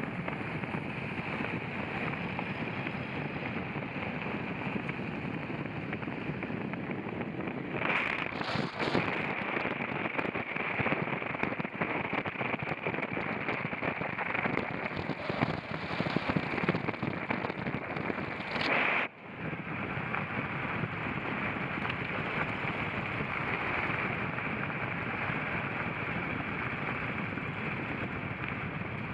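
Off-road vehicle driving over rough ground, a steady rushing noise with wind on the microphone. From about 8 seconds in it grows louder with many knocks and rattles, then cuts off abruptly about 19 seconds in.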